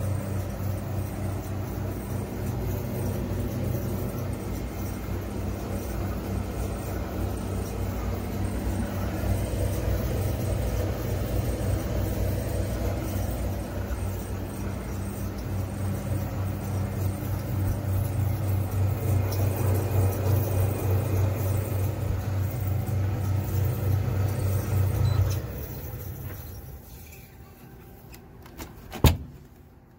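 A steady low motor hum with some rattle over it. It fades out about 25 seconds in, and a few sharp clicks follow near the end.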